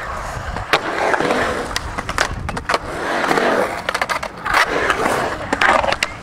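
Skateboards rolling across a concrete bowl, the rolling noise swelling and fading again and again, with many sharp clacks and scrapes of boards hitting and sliding on the metal pipe coping.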